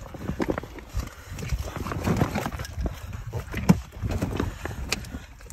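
Irregular knocks, clatter and rustling of outdoor gear being handled, with a sharper click about three and a half seconds in.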